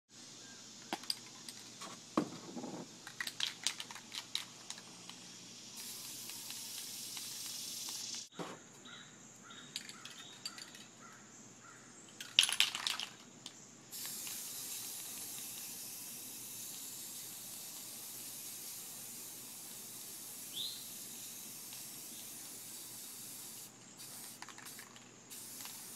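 Aerosol spray paint cans hissing in spray passes, a short one and then a long steady one through the second half, with clicks and knocks from handling the cans in the first half.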